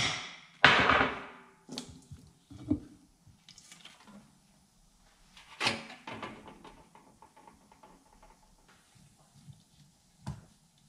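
A handheld power impact wrench runs in a short burst near the start, spinning a bolt out of a 1966 Corvette differential's rear cover. Scattered metal knocks and clanks follow as the rusty cover is worked loose and pulled off, the loudest one about six seconds in.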